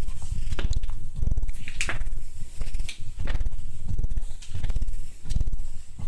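Footsteps along a walkway in a rock tunnel, short irregular steps and scuffs, over a heavy low rumble of handling noise on a carried microphone.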